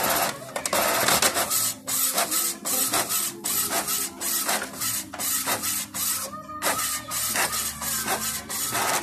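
Epson L655 inkjet printer running a copy job: the print-head carriage shuttles back and forth across the page in quick rasping strokes, a few a second, as the sheet feeds through. The printer is working normally after its 0xf3 error was cleared.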